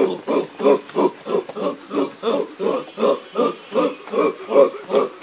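A group of boys chanting a short, grunting syllable in unison, evenly about three times a second.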